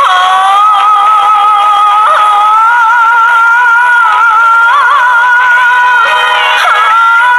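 A woman singing a slow ballad, holding long notes with a slow vibrato over musical accompaniment. The sound is thin, with little bass.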